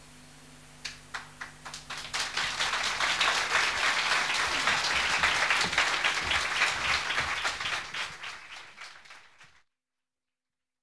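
Audience applauding at the end of a live performance: a few scattered claps about a second in quickly build into full applause, which thins out and then cuts off abruptly near the end.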